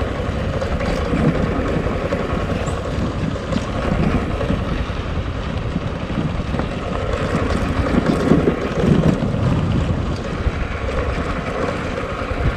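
Motorcycle running while being ridden, with wind rushing and buffeting over the microphone.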